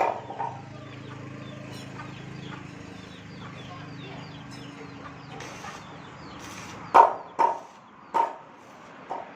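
Short, loud animal calls of farm or yard animals, a couple near the start and several more from about seven seconds in, over a steady low hum that stops about seven seconds in.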